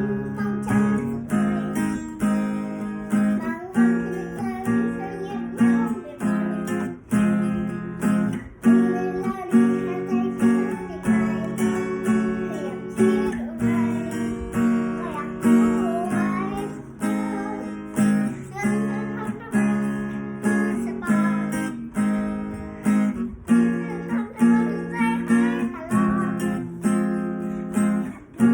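Acoustic guitar strummed in a steady rhythm, chords ringing between regular strokes.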